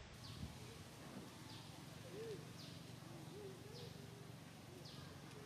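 Faint birdsong: a short falling high note repeated about once a second, with a few soft low cooing notes in the middle.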